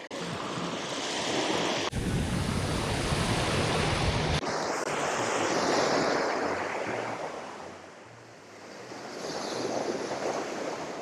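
Ocean surf washing onto the beach, swelling and fading like waves coming in and drawing back, with strong wind buffeting the microphone for the first few seconds.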